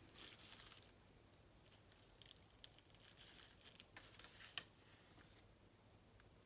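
Faint rustling and crinkling of packaging handled by hand, in three short spells, with a few small clicks around the middle.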